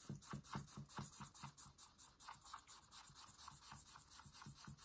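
Faint scratching of charcoal on sketchbook paper in quick, even back-and-forth strokes, several a second, as a dark tone is shaded in.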